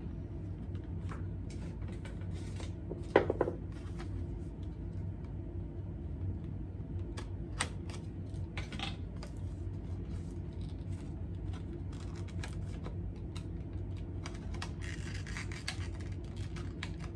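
Fingernails picking and scratching at a small, tight cardboard product box as it is worked open, scattered small clicks and rustles with one sharper click a little over three seconds in. The flap is stubborn and slow to give.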